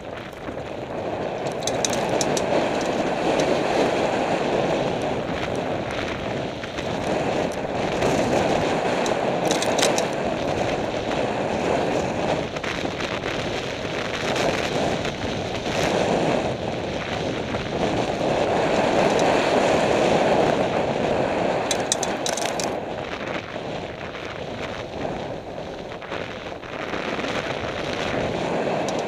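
Wind rushing over a helmet camera's microphone as a downhill mountain bike runs fast along a dirt trail, mixed with the rumble of the tyres on the ground. The noise swells and eases as the speed changes, and short clatters from the bike come through a few times.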